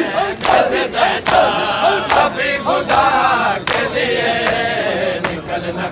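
A large crowd of mourners chanting together in a Muharram lament, over loud slaps of hands on bare chests (matam) landing about once a second.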